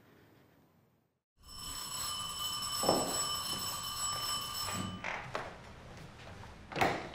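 An electric doorbell ringing steadily for about three and a half seconds, then stopping. A few knocks and clacks follow at the door, the loudest just before the end.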